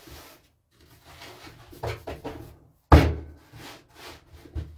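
Hands pressing and patting a round of bread dough on a board, giving dull knocks and thuds, several in a row, with one sharp, loud thump about three seconds in.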